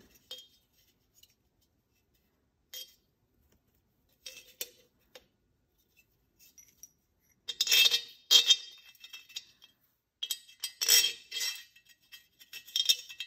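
Metal clinks and clatter of a chainsaw muffler and its bolts being handled and fitted, with a few scattered clicks and then louder bursts of clattering about halfway through and again near the end.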